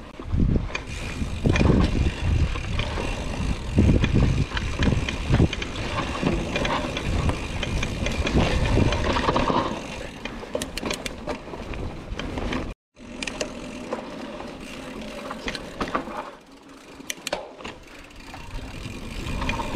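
Hardtail mountain bike ridden along a trail, heard from an on-board action camera. Through the first half there is loud low rumbling with knocks. About two-thirds in the sound cuts out sharply for a moment. After that it is quieter, with lighter rattling and sharp clicks from the bike.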